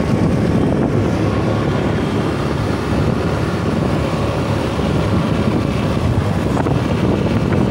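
Steady wind rumble on the microphone with a motorcycle running underneath as it rides along the road.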